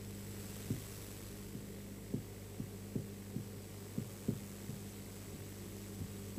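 Steady low electrical hum with about a dozen soft, dull low knocks at irregular intervals.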